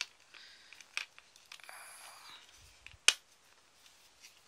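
Blu-ray discs handled in a plastic multi-disc case: a few sharp clicks as discs snap on and off the centre hubs, the loudest just after three seconds in, with a short scraping slide of disc against plastic around two seconds.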